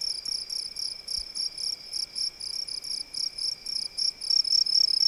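Crickets chirping in short, evenly repeated high chirps, about four a second, over a faint steady lower hum.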